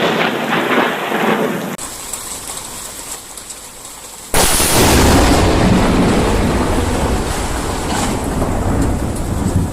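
Thunder with rain noise, then a sudden, very loud thunderclap about four seconds in from a close lightning strike, rumbling on.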